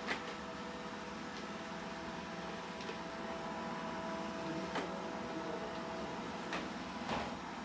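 Robot vacuum cleaner running with a steady whir and hum, with a few light knocks scattered through.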